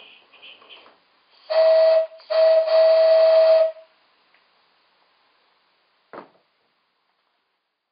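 DJB resonator whistle on a 16mm-scale Accucraft NGG16 Garratt model, blown on compressed air: two blasts at one steady pitch, a short one then a longer one of about a second and a half. A single short knock follows a couple of seconds later.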